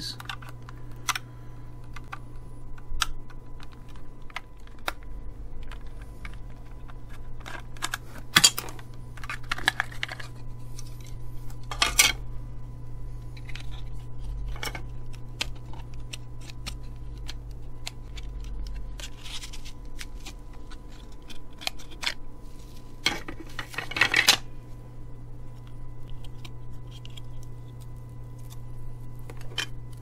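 Security screws being turned out of a small plastic cable-tester case with a screwdriver, then the case being opened and handled. Small clicks, scrapes and rattles of plastic and metal, with a few louder clatters about a third of the way in and again about three-quarters through, over a steady low hum.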